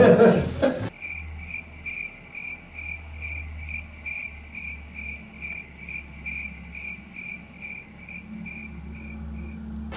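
Cricket chirping sound effect, a steady run of evenly spaced chirps, nearly three a second, over a low hum. It starts suddenly about a second in: the stock "crickets" gag for an awkward silence.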